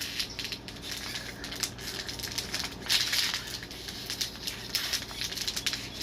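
Empty capped plastic water bottle being twisted and squeezed, the thin plastic crinkling and crackling in irregular bursts, loudest about halfway through.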